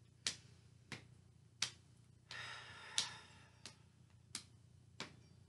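Hands patting the knees in a steady rhythm, about one light pat every two-thirds of a second, as opposite hand taps opposite knee in a cross-crawl exercise. A soft breath out through the mouth is heard about halfway through.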